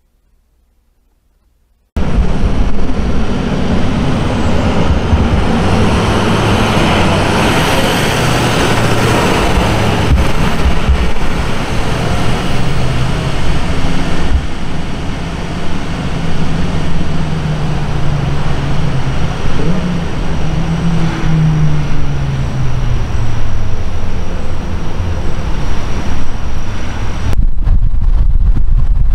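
A large emergency truck's engine running as it drives off down the road, its pitch rising and falling, over road noise; it starts abruptly after about two seconds of silence. Near the end it gives way to a low wind rumble on the microphone.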